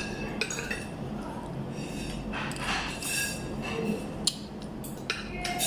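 Metal spoon and fork clinking and scraping against a ceramic plate while eating fish and rice. The clinks are scattered and irregular, with one sharper clink about four seconds in.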